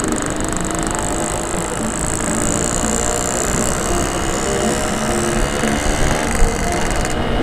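Yamaha RX-King's 135 cc two-stroke single running steadily at riding speed, heard from on the bike.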